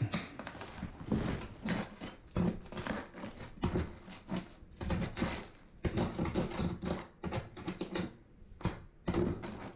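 Pry bar chiseling into cement backer board (Wonder Board) along a grout line: irregular sharp knocks and clinks with scraping and crunching between them.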